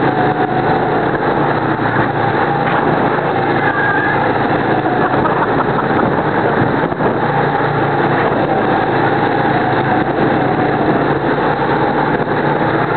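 Go-kart engines running at racing speed, heard close up from a camera mounted on a kart. The sound is steady throughout, with the engine pitch wandering slightly up and down.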